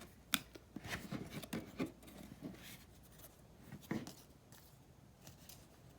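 Football trading cards being handled and slid against one another: light scraping and rustling with scattered clicks, a sharp tick about a third of a second in and another cluster about four seconds in.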